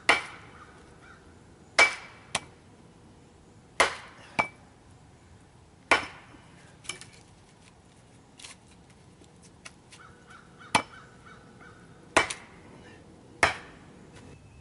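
Axe chopping wood: about ten sharp strikes, the heavy ones roughly two seconds apart and several followed by a lighter hit, with a pause of about three seconds in the middle.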